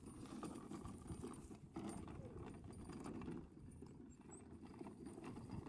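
Footsteps and movement crunching on gravelly dirt, a continuous low crackle with scattered small ticks.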